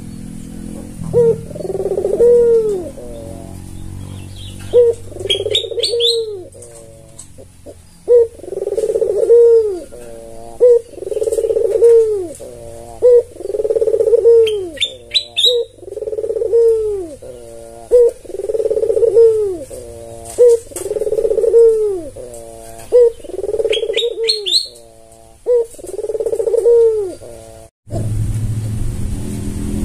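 White (albino) Barbary dove cooing over and over, a rolling coo about every one and a half seconds, with a few short high chirps from another bird between the coos. The cooing cuts off suddenly near the end.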